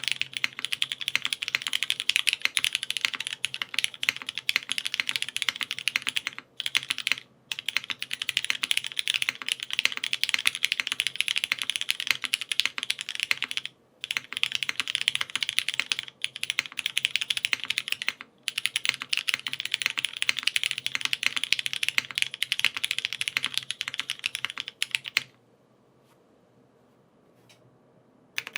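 Fast typing on an Orbit65 mechanical keyboard with lubed Cherry MX Black Hyperglide linear switches, GMK keycaps, an aluminium plate and a full brass bottom case. It is a dense stream of key clacks broken by a few short pauses, stopping for about three seconds near the end and then starting again.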